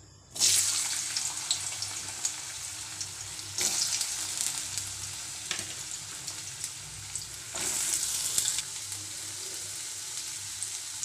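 Raw potato cubes hitting hot oil in a kadai, sizzling sharply at once, then frying with a steady hiss and crackle. The sizzle surges louder twice, about a third of the way in and again briefly past the middle.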